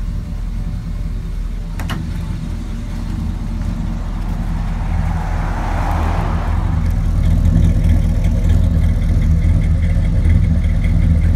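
The 1965 Ford Galaxie 500XL's V8 running at a steady idle, heard at the tailpipe. The exhaust note grows louder about halfway through as the pipe comes close.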